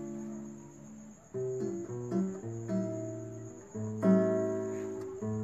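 Acoustic guitar played alone, with no voice. A chord dies away, then single notes are picked one after another, and full strummed chords ring out about four seconds in and again near the end.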